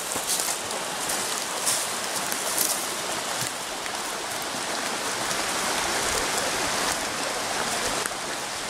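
Steady rushing noise of flowing water.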